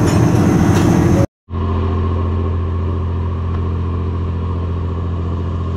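Riverboat's diesel engine running steadily under way, a deep even hum with rain and water noise over it. The sound drops out for a moment about a second in, then the same steady hum carries on.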